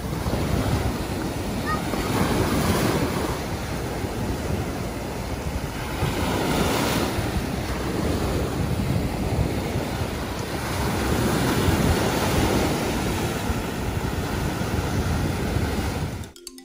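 Shallow surf washing in and out over sand at the water's edge, rising and falling as each wave comes in, with wind buffeting the microphone. It cuts off abruptly near the end as music begins.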